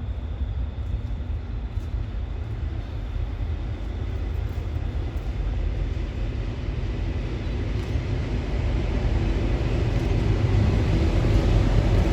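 A train approaching on the tracks, its low rumble growing steadily louder.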